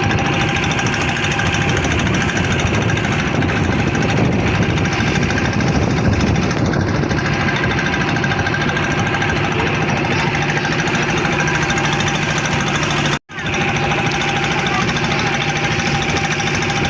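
Fishing motorboat's engine running steadily with a fast, even chugging, cutting out for a split second about thirteen seconds in.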